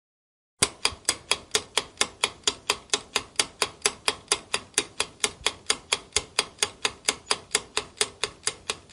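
Countdown-timer tick sound effect: sharp, evenly spaced clock ticks, about four a second, starting about half a second in.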